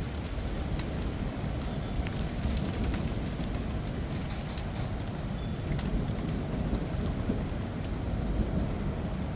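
Steady rain falling in a thunderstorm, with a continuous low rumble and scattered sharp ticks of drops hitting nearby surfaces.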